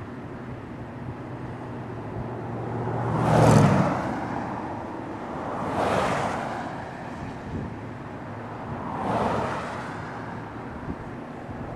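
Three vehicles pass by on the road one after another, each swelling and fading in about a second; the first, a few seconds in, is the loudest. Steady wind noise on the microphone runs underneath.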